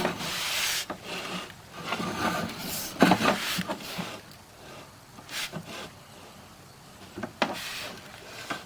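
Sewer inspection camera and its push cable scraping and rubbing through a clay pipe packed with dirt, with a few sharp knocks.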